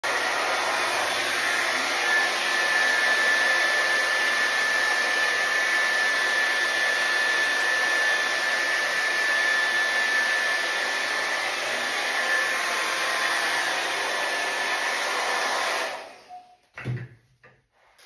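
Rotating 3-in-1 hot-air brush running steadily: a loud even rush of air with a thin high whine. It cuts off suddenly about two seconds before the end, followed by a couple of soft knocks.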